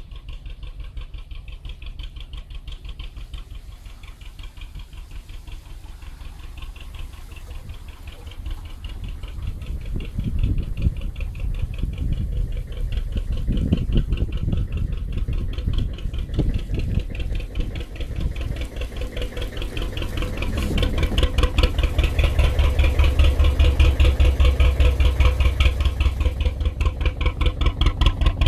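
A narrowboat's slow-running diesel engine chugging steadily at about three beats a second, growing louder in the second half.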